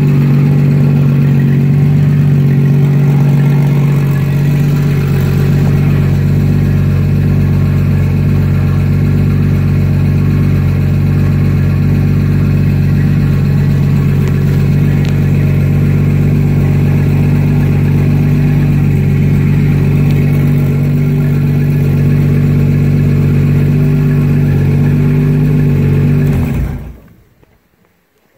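Toyota 7M-GTE turbocharged inline-six running at a steady idle, carrying a mystery noise that the owner has not traced despite checking the rod bearings and oil pump. The engine is switched off about 27 seconds in and winds down quickly to silence.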